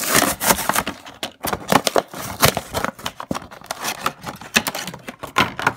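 Clear plastic blister packaging of a die-cast toy car 2-pack crinkling and crackling as it is handled and pulled open by hand: a dense, irregular run of sharp crackles that cuts off suddenly.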